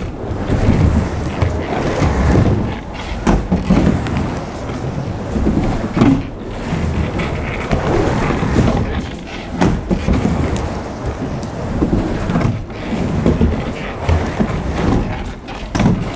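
Surfskate wheels rolling and carving on a ramp: a rumble that swells and fades with each turn, with a few sharp knocks.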